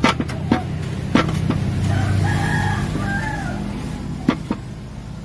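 A wooden pole pounding roasted rice husk charcoal in a metal drum: sharp, irregular knocks, several in the first second and a half and two more about four seconds in, over a low rumble. A rooster crows in the middle.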